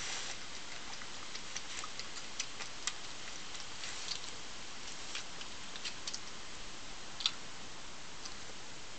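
Badger eating: irregular sharp clicks and crunches of chewing over a steady hiss, with one louder click about seven seconds in.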